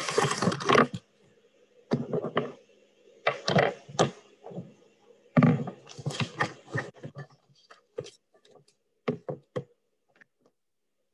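Irregular thunks and knocks of things being handled at a desk, heard through a video-call microphone. They come in scattered clusters and die away near the end.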